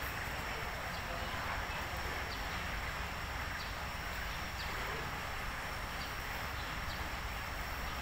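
Steady outdoor background noise, an even hiss with a low rumble, with faint light ticks about once a second.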